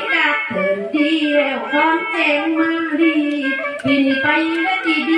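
Tai Lue khap singing: a woman's voice holds long notes that bend and slide between pitches.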